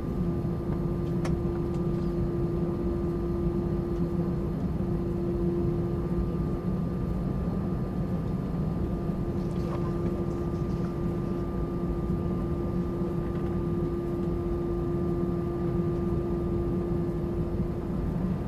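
Steady, even hum inside the cabin of an Airbus A320-200 before take-off, with a constant droning tone.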